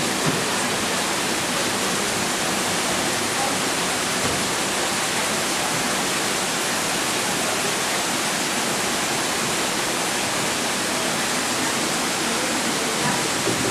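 Steady rush of falling water, even and unbroken.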